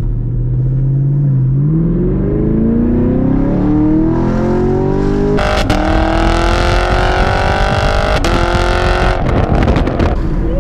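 Naturally aspirated 6.2-litre V8 of a sixth-generation Camaro SS through a Corsa Extreme cat-back exhaust, accelerating hard. The pitch climbs and then drops at an upshift about five seconds in, where the exhaust gets louder and fuller. It climbs again, with another brief break about eight seconds in, and falls away near the end.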